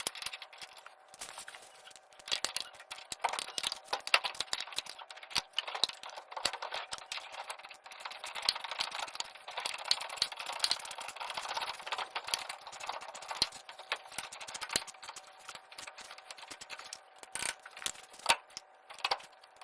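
Welding arc crackling and spitting in a dense run of fast clicks, stopping and restarting a few times as short beads are laid on the steel bracket.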